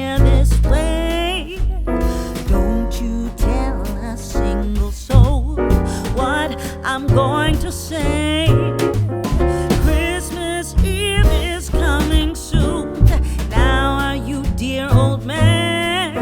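Background music: a song with a singing voice over piano, bass and a steady beat.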